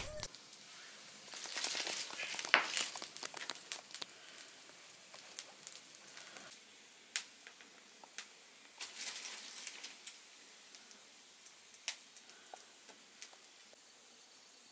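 Irregular crackling with scattered sharp clicks, busiest in the first few seconds and again around nine seconds in, thinning out toward the end.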